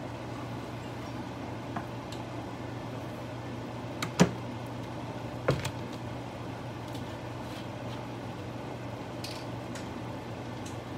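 Steady low electrical hum from the cooktop under the pot, with a faint hiss and two sharp ticks about four and five and a half seconds in.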